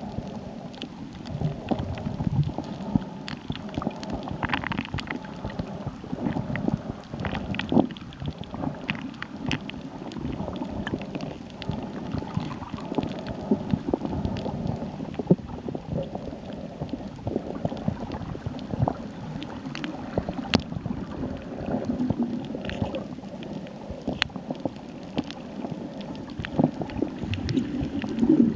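Muffled underwater sound from a snorkeler's movements: water churning and sloshing, with frequent small clicks and crackles throughout.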